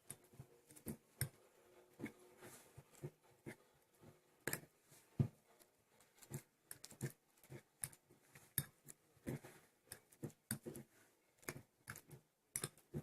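Fork mashing boiled garlic cloves in a dish: faint, irregular clicks and taps of the fork against the dish, about one or two a second.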